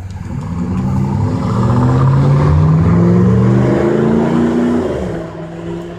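A motor vehicle's engine running with its pitch rising, growing louder to a peak about halfway through and fading near the end.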